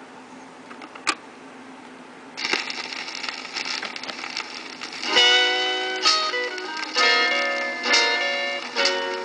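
A 45 rpm vinyl single on a turntable: a click about a second in, then a hiss of surface noise from about two and a half seconds as the needle rides the lead-in groove. About five seconds in, the record's opening guitar notes begin.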